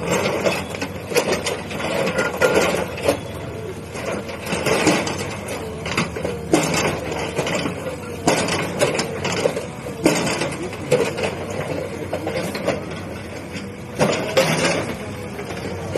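A bulldozer knocking down masonry, with irregular knocks and crunches over its running engine.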